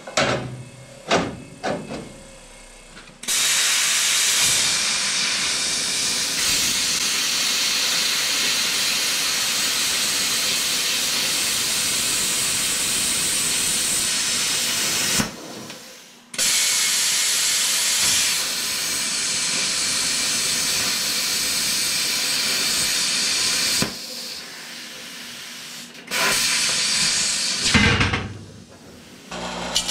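A plasma cutter cutting steel plate, a steady hiss of the air-and-arc jet that stops about 15 s in, restarts about a second later, and stops again near 24 s. A few knocks and clicks come before the first cut.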